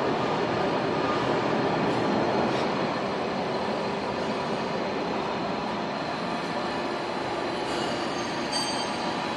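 Machinery running steadily: a continuous grinding, rumbling mechanical noise with no rhythm, and faint brief high-pitched squeals near the end.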